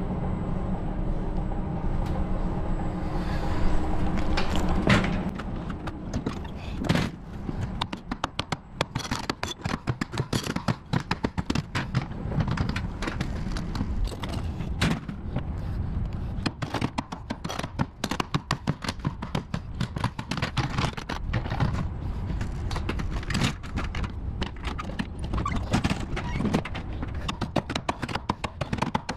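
Mallet knocking loose the swing-bolt wing-nut clamps on a stainless steel tanker's manhole lids: many sharp metal knocks, several a second, from about seven seconds on, mixed with footsteps on the metal catwalk. A steady machine hum runs for the first few seconds and then gives way to the knocking.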